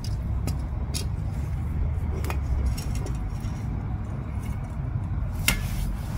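A few light metallic clicks from a drum brake shoe assembly, with its return springs and adjuster strut, being handled and set down on concrete, over a steady low rumble.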